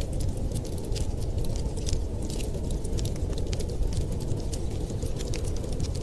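Wood fire crackling, with many small irregular pops and snaps over a steady low rumble.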